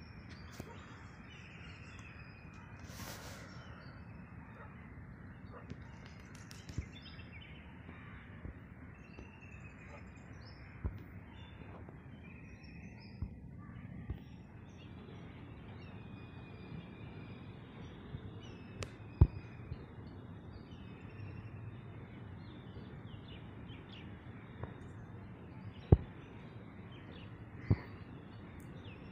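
Outdoor background noise: a steady low rumble with faint bird calls, broken by a few sharp clicks, the loudest two about two-thirds of the way through and near the end.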